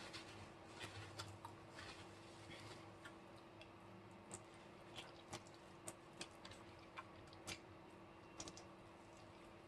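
Quiet, close-up eating: scattered faint mouth clicks and chewing sounds while eating chicken, over a low steady hum.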